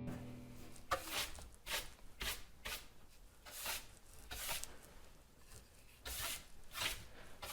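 A series of short scuffing or rustling sounds, irregular and about one or two a second.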